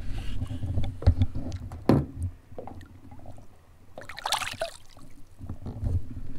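Lake water splashing as a caught fish is lowered by hand into the water and released, with a short, loud splash about four seconds in. A few sharp knocks come in the first two seconds.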